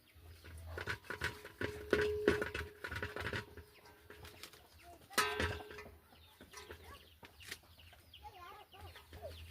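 Chickens clucking, with loud squawking calls about a second in and again about five seconds in.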